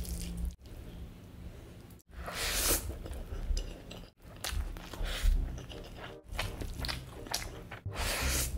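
Close-miked wet chewing and squishing of handfuls of chicken curry and rice eaten by hand, broken by short, abrupt silent gaps every second or two.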